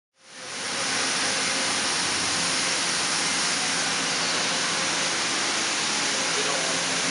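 A 2009 Fanuc Robodrill T14iFa drill/tap machining center running: a steady hiss with a faint low hum beneath it. The sound fades in over the first second.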